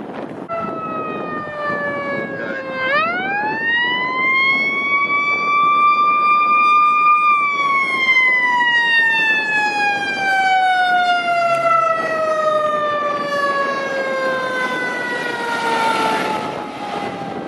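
Fire engine siren sounding one slow wail: it winds up about three seconds in, holds its top pitch for a few seconds, then slowly winds down. A rush of road noise swells near the end as the truck passes close.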